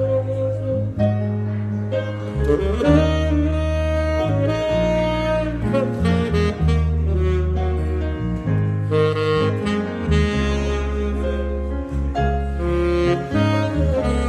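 Saxophone playing a melody of long held notes over an electric bass line, a live jazz band.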